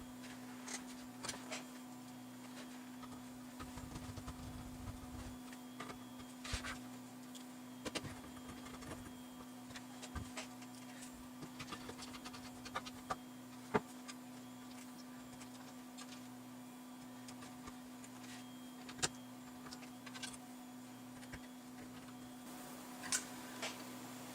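Scattered clicks and taps of a bench power supply being handled and reassembled, with its parts and case screws going back together, over a steady low hum. There is a brief rustle about four seconds in, and the sharpest clicks come around the middle.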